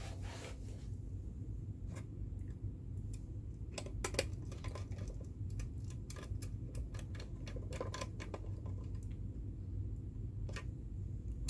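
Light, irregular clicks and taps of a wire being fitted and fastened into the coil terminal of an ABB contactor, over a low steady background hum.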